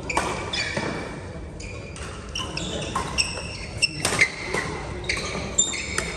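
Badminton play in a large echoing hall: court shoes squeaking sharply on the floor and several crisp racket hits on the shuttlecock, the loudest about four seconds in.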